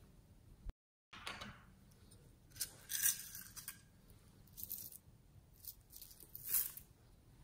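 Small plastic shell-shaped sequins poured from a scoop into a palm and sprinkled, clinking and rustling in several short bursts, the loudest about three seconds in. All sound cuts out briefly just under a second in.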